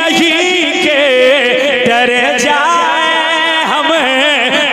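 A man singing a naat, an Urdu devotional poem, holding a long drawn-out line with no clear words, his voice sliding and wavering in pitch.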